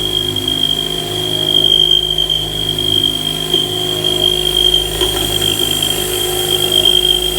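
CNC milling machine thread-milling an M24 thread: a steady high-pitched whine from the spindle and thread-milling cutter over a low machine hum.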